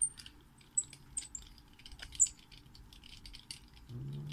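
Screwdriver turning small screws into the metal housing of a tweeter driver: irregular light clicks and metallic ticks, some with a short high ping, as the back of the tweeter is screwed together after its coil repair.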